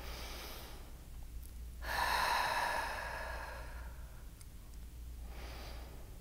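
A woman's slow, audible breathing: a soft breath in the first seconds, a longer, louder breath about two seconds in, and a short one near the end.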